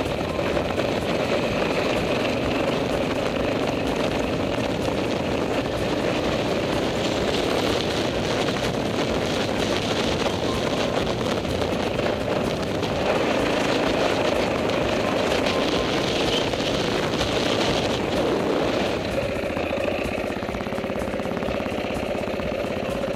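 Trail dirt bike engine running steadily while the bike rides a gravel track, with wind rushing over the microphone. The engine eases off a little near the end.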